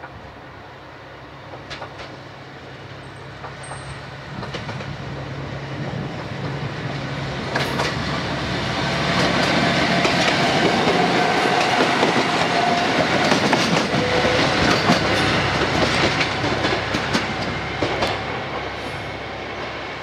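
Orange single-car Tsugaru Railway diesel railcar passing close by: engine running and wheels clacking over the rail joints. It builds from faint, is loudest from about halfway to near the end with many quick clicks, then fades as it moves away.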